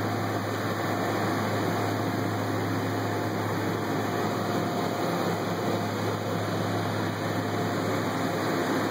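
Steady machine-shop background hum: a constant low drone under an even hiss, unchanging throughout.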